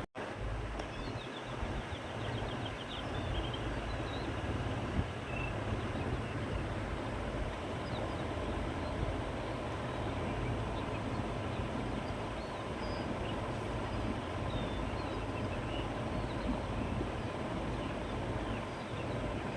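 Wind blowing across open countryside: a steady rushing with a low rumble, with faint bird chirps scattered throughout. The sound drops out for an instant right at the start.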